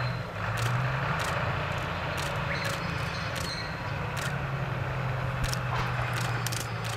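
Kominato Railway KiHa 200 series diesel railcar pulling away from a station, its diesel engine running with a steady low drone, with scattered sharp clicks over it.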